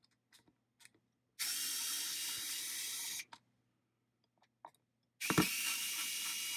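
Cordless electric screwdriver whirring in two runs of about two seconds each, backing out the small Phillips screws that hold a diffuser's circuit board down: one starts about a second and a half in, the other near the end. Faint clicks come between the runs.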